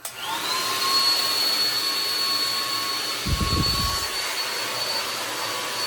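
Handheld hair dryer with a comb attachment switched on: its motor whine rises as it spins up, then it blows steadily with an airy rush. A brief low rumble comes about three seconds in.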